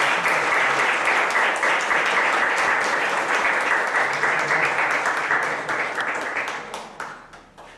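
Audience applauding steadily, thinning into scattered separate claps and dying away near the end.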